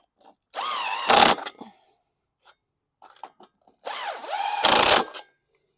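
A power driver spinning a deep socket on a nut, run in two bursts, its motor whine rising and falling in pitch and each burst ending louder.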